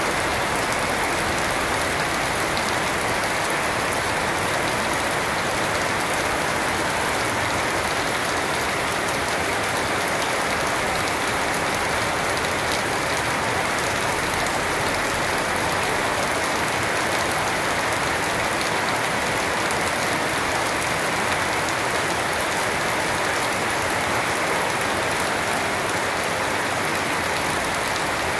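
Steady heavy rain falling on trees and garden plants: a dense, even hiss without a break.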